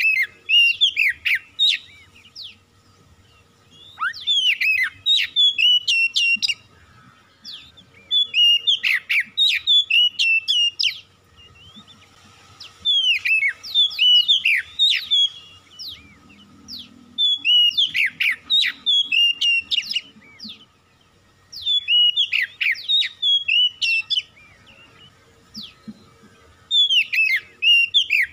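Oriental magpie-robin singing loudly: phrases of clear whistles and sharp down-slurred notes, each lasting a second or two, repeated about every four seconds with short pauses between them.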